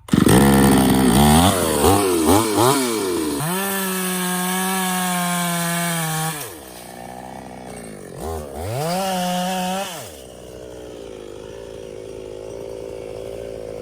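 Stihl petrol chainsaw engine running: blipped up and down a few times, held at high revs for about three seconds, dropped to idle, revved again, then left idling.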